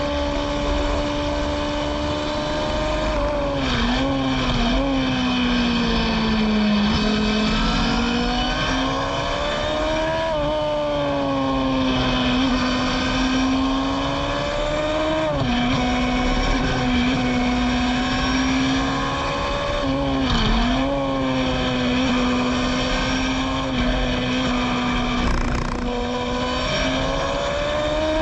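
Onboard sound of a Formula Gloria single-seater's 1000 cc Yamaha motorcycle engine running hard around the circuit. The engine note climbs and falls with throttle and gear changes, with sharp drops at about four seconds, halfway through and again a few seconds later, then rises again near the end.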